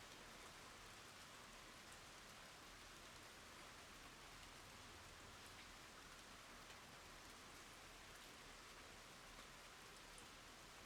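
Faint, steady rain falling on wooden boards and a water surface, with single drops now and then ticking out of the hiss.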